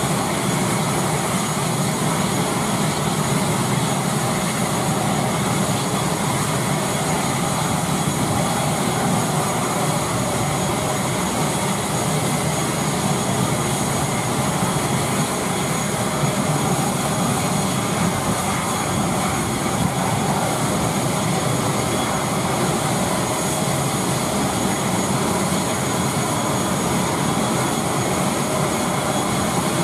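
ATR 72 turboprop engine running steadily at ground idle with its propeller stopped, a continuous hum with a high whine over it, as in the type's hotel mode at the gate.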